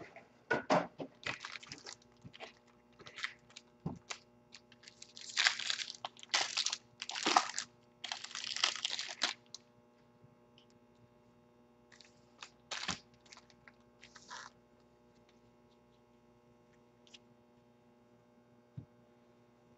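Foil-wrapped trading-card packs crinkling as they are handled and stacked, in several short bursts that are busiest in the first half, then a few light taps.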